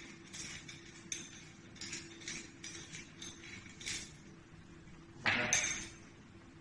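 Light metallic clinks and taps of a chrome basin faucet and its braided steel hoses being handled, with a louder knock about five seconds in as the faucet is set onto the vanity top.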